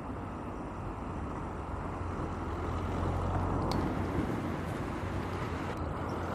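Steady outdoor rumble with a low hum underneath.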